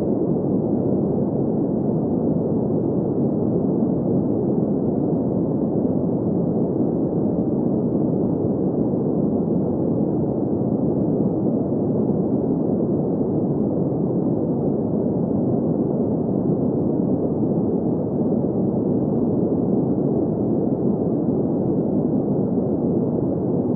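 Steady, unchanging green noise for sleep: an even hiss-like rush centred in the low-mid range, with nothing above about 2 kHz.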